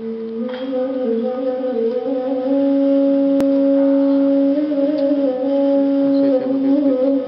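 A flute playing a slow melody of long held notes that move up and down in small steps.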